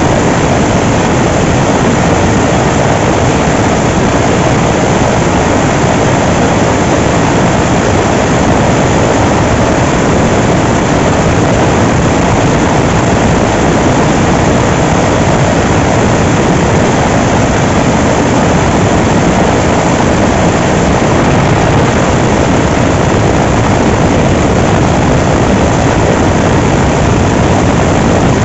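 Helicopter engine and rotor noise heard from on board while the aircraft hovers, loud and steady.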